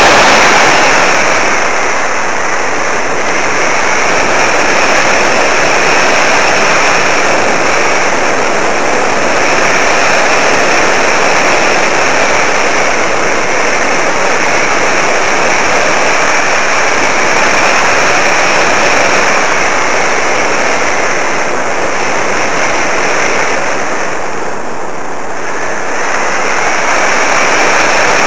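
Steady rushing noise of air and propeller from a small electric RC model plane in flight, easing off a little about twenty-five seconds in.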